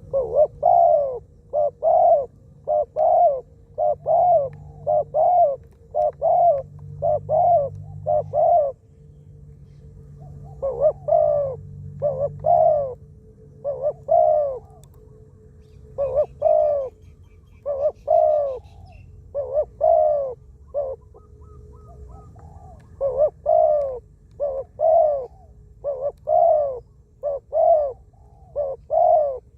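Spotted dove cooing over and over: phrases of low, arched coo notes repeated one after another, with short pauses between series.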